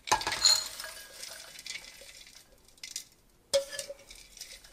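Coarsely chopped walnuts poured from a plastic food-processor bowl into a small glass bowl: a gritty rush of nut pieces sliding and pattering onto the glass that trails off over about two seconds. A single short knock with a brief ring comes about three and a half seconds in.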